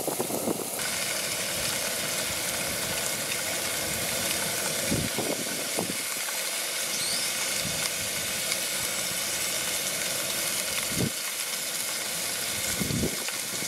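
Whole stuffed bluegill sizzling on a slotted grill grate over an open flame, a steady hiss throughout, with a few faint thumps.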